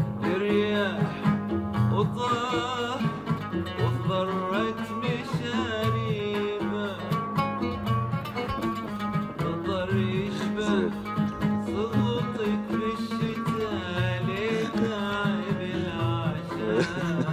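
A man singing an Arabic song with plucked string accompaniment, from a recording of modest sound quality.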